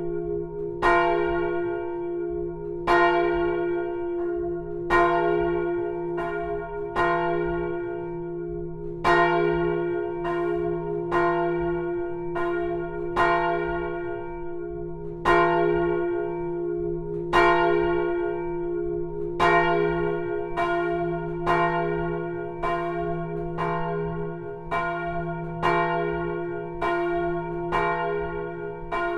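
Swinging 820 kg bronze church bell, cast in 1515 by François de Montfort and sounding F, rung in full swing. Its clapper strikes about once every one to two seconds, each strike ringing on over a deep hum into the next.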